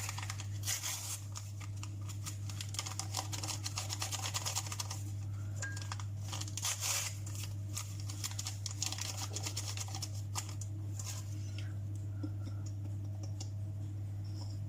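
Small paper sachets of cake leavening being torn open and emptied into the batter: a run of light crackles, rustles and ticks, over a steady low electrical hum.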